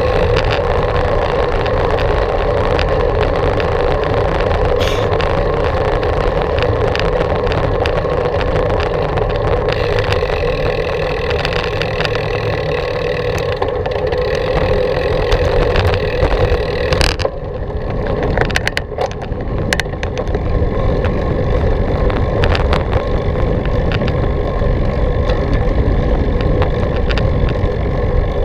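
Wind rushing over the action-camera microphone and bicycle tyres rolling during a ride: a loud, steady rush with a constant hum. About seventeen seconds in it briefly drops and thins, then picks back up.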